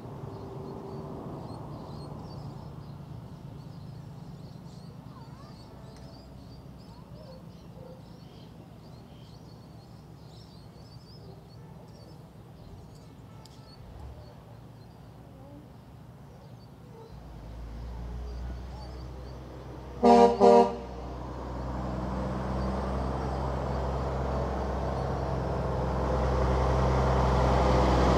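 Two short blasts of a truck horn about two-thirds of the way through, over the diesel engine of a heavy tow truck approaching, its low rumble growing steadily louder toward the end.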